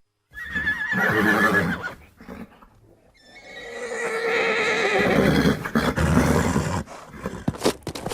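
Horse whinnying twice: a short quavering neigh just after the start, then a longer, louder one from about three seconds in. Near the end comes a quick run of sharp hoof knocks.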